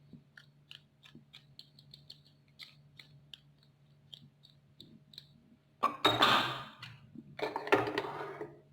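Soft, scattered clicks and taps of kitchen handling over a salad bowl, then two louder noisy rustling bursts about six and seven and a half seconds in.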